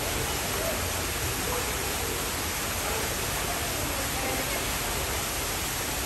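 Steady, even rushing hiss, like running water or an air handler, with a faint murmur of distant voices.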